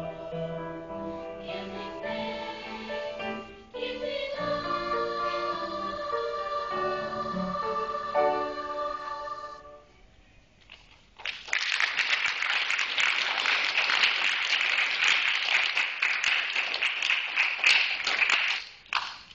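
A sixth-grade girls' chorus sings the closing phrases of a song and ends on a long held note about ten seconds in. After a brief pause the audience applauds for about seven seconds, then the applause dies away.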